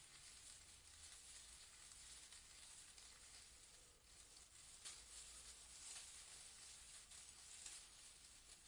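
Faint, steady white-noise hiss.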